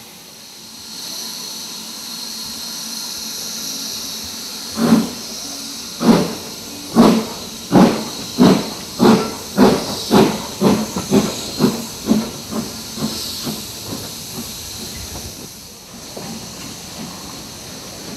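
BR Standard 9F 2-10-0 steam locomotive starting its train: a steady hiss of steam, then about five seconds in, heavy exhaust chuffs begin, slow at first and quickening steadily as the train gathers speed, growing fainter toward the end.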